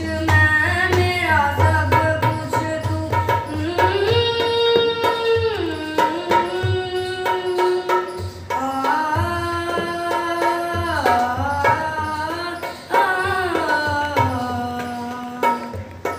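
A patriotic song with tabla accompaniment: a melody of long held notes that slide from one pitch to the next, over steady tabla strokes.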